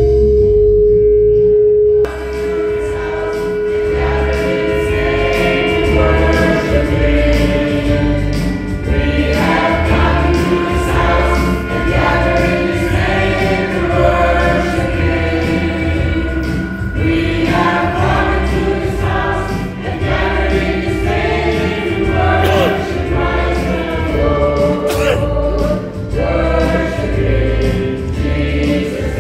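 Church choir singing with orchestral backing played on a Yamaha PSR-S970 arranger keyboard. A held keyboard note opens, and the choir's voices come in about two seconds in over a steady rhythmic bass accompaniment.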